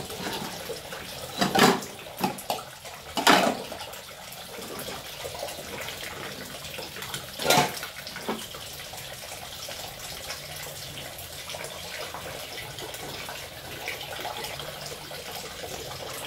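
Tap water running steadily into a sink during hand dishwashing, with plates knocking and clattering a few times in the first few seconds and once more about seven and a half seconds in.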